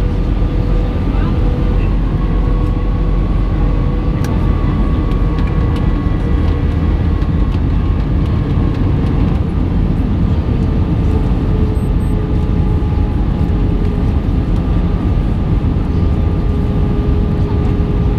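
Airbus A319 cabin noise in flight: a steady, loud rumble of engines and airflow, with a steady engine whine whose pitch dips slightly a little past halfway.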